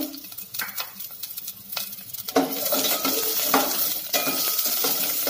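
Metal spatula scraping and clinking against a stainless steel pot as small onions are stirred in hot oil, over a light sizzle of the onions frying. The stirring gets busier about halfway through.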